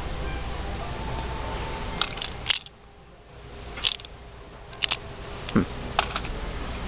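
Handling noise from a handheld camera: scattered sharp clicks and knocks over a steady low room hum, with the background dropping away briefly after a loud click about two and a half seconds in.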